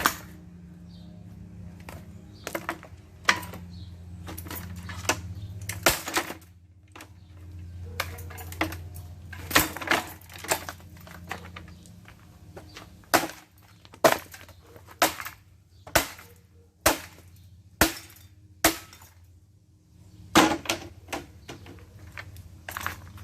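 A ceiling fan being smashed apart: a long run of sharp blows and cracks with breaking and clinking, some strikes ringing briefly. A low steady hum lies underneath for the first half.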